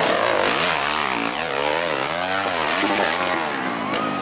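Dirt bike engine revved up and down over and over, its pitch rising and falling in quick repeated throttle blips.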